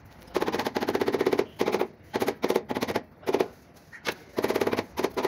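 Rubber mallet tapping ceramic wall tiles in quick bursts of rapid strikes, the first and longest burst lasting about a second, with shorter bursts following.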